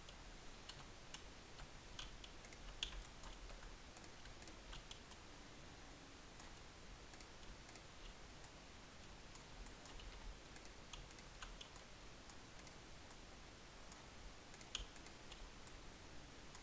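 Faint, scattered clicks of a computer mouse and keyboard over a low hiss, with a slightly louder click about three seconds in and another near the end.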